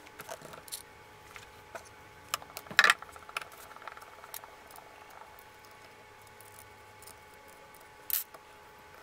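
Handling noise as a Kral Puncher Jumbo air rifle is taken apart on a wooden desk and its wooden stock comes off: scattered light clicks and taps, one louder knock about three seconds in, and a sharp click near the end.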